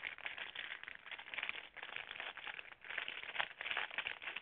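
Packaging rustling and crinkling as it is handled, an uneven run of small crackles.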